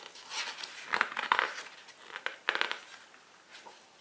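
Paper leaflet being handled and leafed through, rustling in a few short bursts, mostly in the first three seconds.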